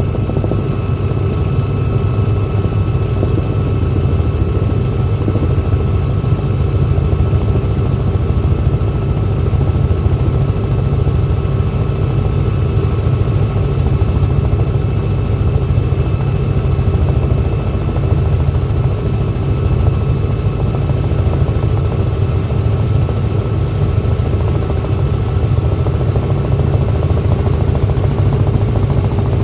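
Helicopter running in flight, heard from inside the cabin: a loud, steady, deep drone of rotor and engine with a constant whine over it.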